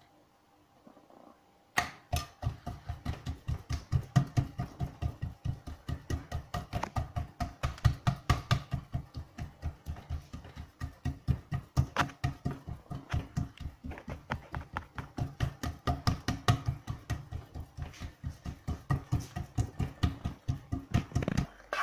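Hands patting and pressing oiled msemen dough flat on an oiled plate: a fast, even run of soft wet slaps that starts about two seconds in.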